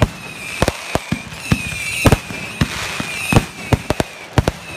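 Aerial fireworks finale: a rapid string of about a dozen booms and bangs, with crackling shells fizzing between them.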